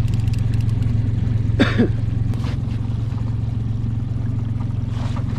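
Boat's outboard motor running steadily, a low even hum. About a second and a half in comes a short vocal sound.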